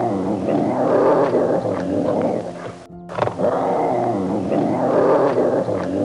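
A growling animal call, played twice in a row with a brief break about halfway through, over background music.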